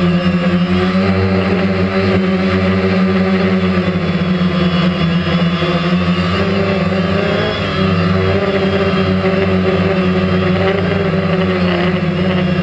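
Propellers and electric motors of a DJI Phantom quadcopter heard close up in flight, a steady, loud buzzing hum made of several stacked tones that waver slightly in pitch as it manoeuvres.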